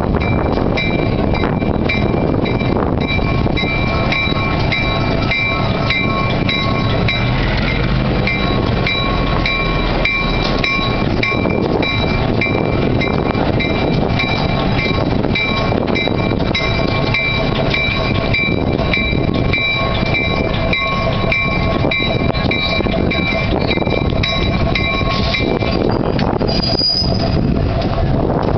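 Fairbanks-Morse diesel switcher's opposed-piston engine running steadily, with a steady high whine over it that stops about 26 seconds in as the turntable turns the locomotive.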